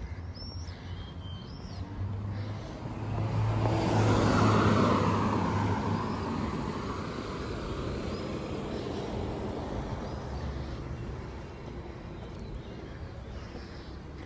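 A car passing close by on the street: it swells about three seconds in, peaks with a falling pitch, and fades away over a few seconds, over steady traffic hum.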